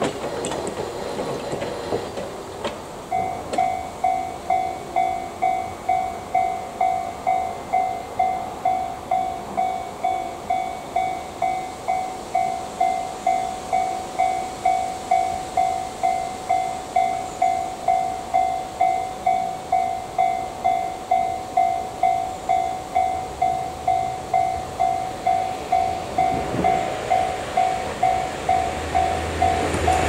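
Japanese railway level-crossing warning bell dinging steadily, about two strokes a second, starting about three seconds in. This is the crossing warning that a train is approaching. Near the end, the approaching 485-series electric train's running noise grows louder beneath it.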